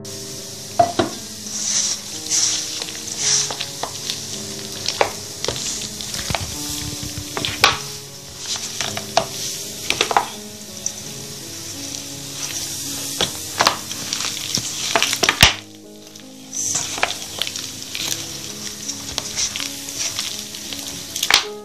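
Hands kneading sticky yeast dough in a stainless steel bowl: wet squelching and slapping with frequent short knocks, over soft background piano music.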